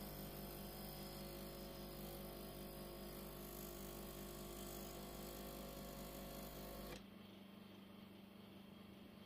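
DeLonghi EC 270 espresso machine's vibration pump humming steadily while a double espresso shot pours, then cutting off abruptly about seven seconds in as the shot ends, leaving only a faint background hum.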